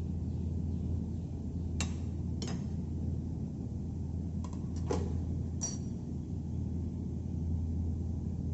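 A handful of light, sharp clinks of kitchen utensils against dishware, five or so in a few seconds, over a steady low hum.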